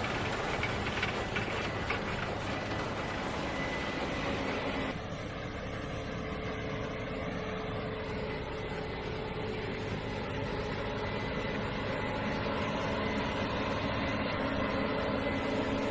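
Harvest machinery engines running steadily: a deep drone with a thin steady whine, the sound changing abruptly about five seconds in.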